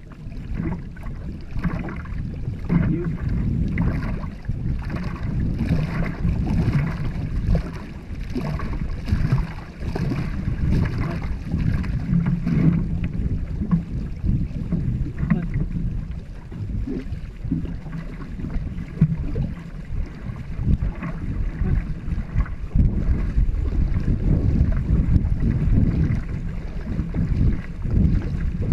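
Wind rumbling on the microphone over the splash and wash of a two-man racing canoe being paddled through the water.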